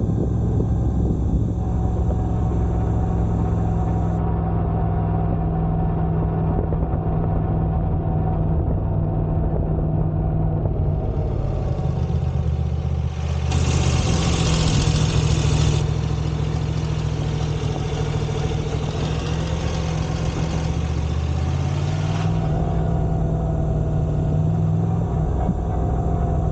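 Moto Guzzi V85 TT's air-cooled transverse V-twin running, its engine speed shifting a few times. The noise comes from an exhaust header cover left half-loose by one of its screws, vibrating against the engine.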